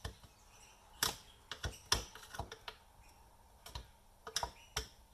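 Loose parts of a dismantled Breville CG10 coffee grinder being handled, clicking and knocking together in irregular clusters of sharp clicks.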